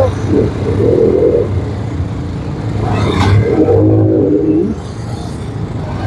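Motorcycle engines running and revving in a packed street traffic jam, a steady low rumble, with a brief clatter about three seconds in.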